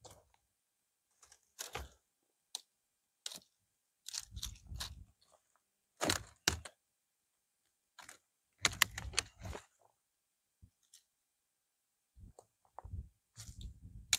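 Irregular knocks, cracks and crunches of things being handled, some with a dull thud, the loudest about six and nine seconds in.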